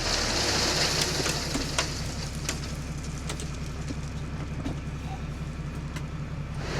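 Truck engine running steadily at low revs, with a hiss in the first second and scattered clicks and rattles.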